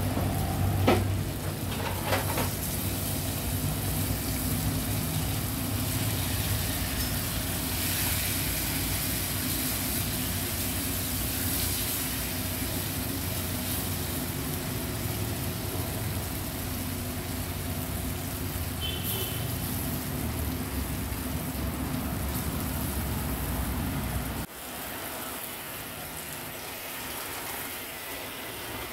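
Flour-dredged pieces shallow-frying in hot fat in a pan, sizzling steadily over a low rumble. There are a couple of sharp clicks near the start, and about 24 seconds in the low rumble drops away and the sound gets quieter.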